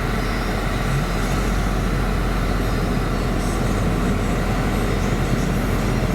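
A 2012 Dodge Charger SRT8's climate-control blower running on high, a steady rush of air. There is no clicking: the newly replaced blend door actuator is working.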